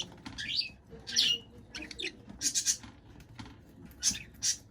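Budgerigars giving short, scratchy chirps and squawks, about five calls spread through a few seconds.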